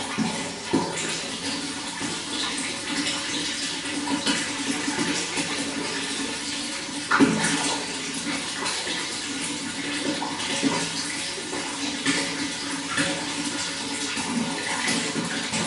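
Running water flowing continuously with a splashing, bubbling sound and small irregular splashes, the loudest about seven seconds in.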